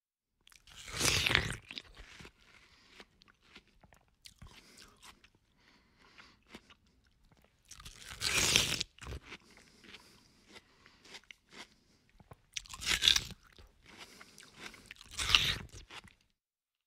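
A person eating prickly pear fruit close to the microphone, biting and chewing with crunching. There are four loud crunches, one about a second in, one near the middle and two near the end, with softer chewing clicks between them.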